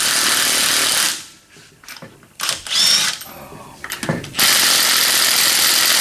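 Impact wrench hammering on a lug nut for about a second, then a pause with a few clicks and a short rising whine, then hammering again from about four and a half seconds in. The lug nut is on a cross-threaded, damaged wheel stud.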